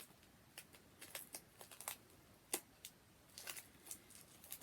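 Faint crinkling and crackling of the foil wrapper on a Terry's Chocolate Mint as it is handled and peeled, with a few sharper clicks scattered through.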